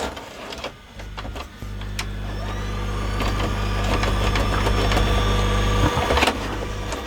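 LG VCR's tape mechanism misbehaving at power-on: a few clicks, then its motors run with a steady low hum and a faint rising whine that grows louder for about five seconds before cutting off near the end, followed by more clicks. The fault is in the loading mechanism, where a spring has popped out of the loading carriage.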